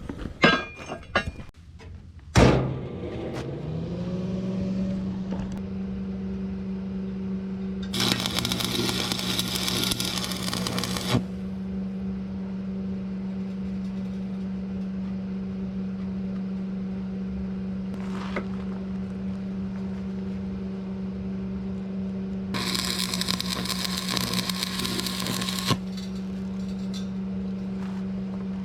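Electric angle grinder knocked on, spinning up and running at a steady high hum, biting into steel twice with loud rasping grinding of about three seconds each.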